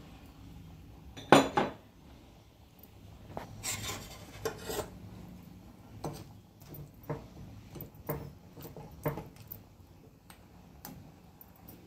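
A metal ladle clinking and scraping against a metal kadai as a crab curry is stirred. Two loud clanks come about a second in, followed by lighter clinks every second or so.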